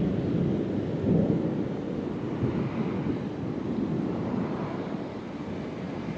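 Thunder rumbling: a long, low rolling rumble that swells to its loudest about a second in, then slowly dies down.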